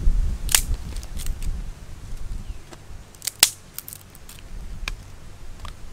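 Dry twigs snapping as they are broken by hand: a handful of sharp, separate cracks, the loudest about three and a half seconds in, over a low wind rumble on the microphone early on that dies away.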